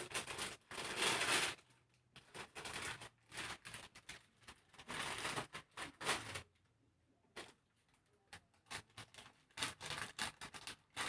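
Rustling and clicking of plastic packets and small containers being handled and set down, with two longer rustling bursts near the start and about five seconds in, and scattered light knocks between.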